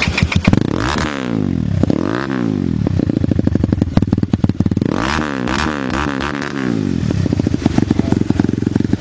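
Crossfire RM250 250cc dirt bike engine idling through its twin silencers, the throttle blipped three times, about one, two and five seconds in, each rev rising and falling back to idle.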